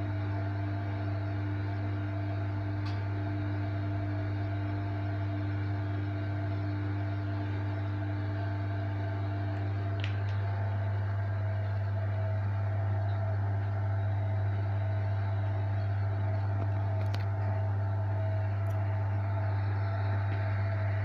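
Hoover Electronic Automatic de luxe washing machine running its spin cycle: a steady low motor hum with a higher tone over it. A second tone fades out about halfway through, and the machine gets slightly louder.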